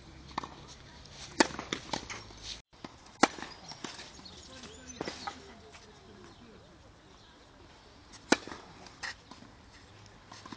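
Tennis ball struck by a racket and bouncing on a clay court: a series of sharp single pops and thuds a second or more apart, the loudest about a second and a half in, three seconds in and eight seconds in.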